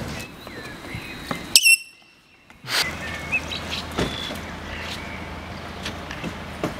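Outdoor background with occasional short bird chirps. A sharp, high chirp sounds about a second and a half in, and about a second of near silence follows before the outdoor sound resumes with faint clicks.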